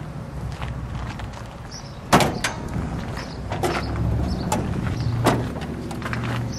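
The hood of a 1957 Dodge Coronet being unlatched and raised: a sharp metal clunk about two seconds in, then several clicks and knocks as the latch lets go and the hood is lifted open.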